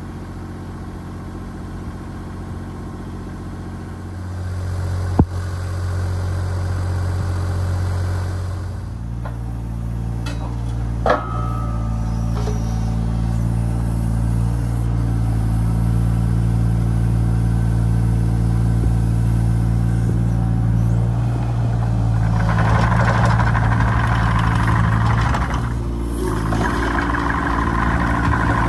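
Takeuchi TB216 mini excavator's diesel engine running steadily, picking up speed about four seconds in as the hydraulics work the boom and bucket. Two sharp knocks, at about five and eleven seconds, and a louder, harsher noise through the last several seconds.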